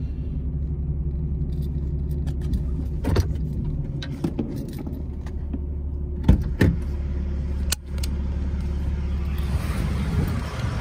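Diesel truck engine idling, heard from inside the cab, with a few clicks and knocks from inside the cab. The engine hum stops about a second before the end, and outside noise rises.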